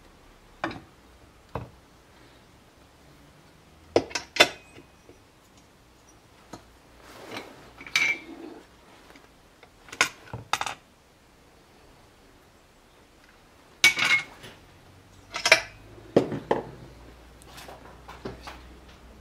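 Metal and plastic parts of an Elite Turbo Muin bike trainer being handled and set down on a wooden workbench: scattered clinks and knocks, singly or in short clusters, every few seconds.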